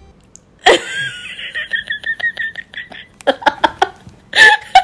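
A young man laughing in delight. A sudden loud high cry comes about half a second in and trails off into giggles, then a run of quick, evenly spaced 'uhahaha' laugh bursts follows, with a louder burst near the end.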